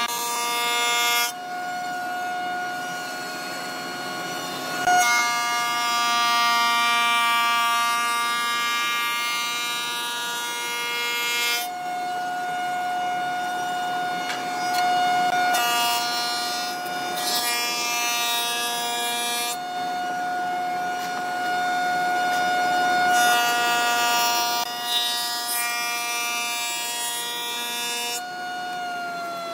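Jointer running with a steady whine from its spinning cutterhead while a thick hardwood block is planed on its bed. A hiss from the cutters comes and goes abruptly several times.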